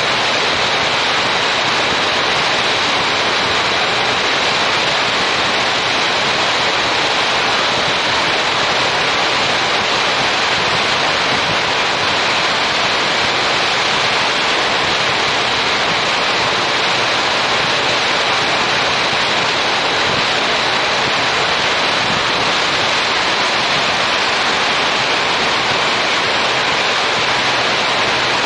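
Steady, loud rushing wind noise on an action camera's microphone at riding speed on a motorcycle, with no distinct events.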